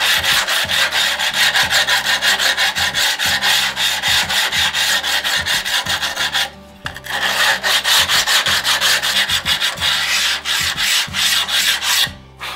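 Coarse-grit EdgeCraft diamond hand file rubbed back and forth along the cut edge of a porcelain tile in quick strokes, several a second, grinding off the jagged chips to put the bevel back on. The strokes pause briefly about halfway through and stop just before the end.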